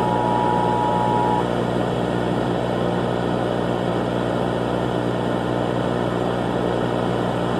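A steady, noisy drone with an even hum running under it. A held tone just below 1 kHz sounds over it and cuts off about a second and a half in.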